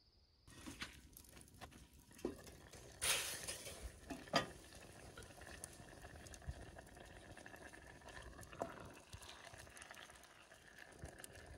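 Chili simmering in a cast iron pot over a campfire's coals: a faint steady bubbling with many small pops and a few sharper clicks, the loudest about three and four and a half seconds in.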